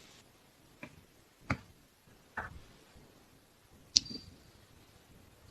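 Four short, isolated clicks and light knocks, spaced irregularly in a quiet room. The last one, about four seconds in, is the sharpest and loudest, with a brief high ring after it.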